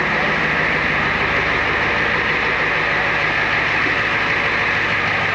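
A 1994 Ford F350's diesel engine idling steadily, freshly started after its fuel system was primed.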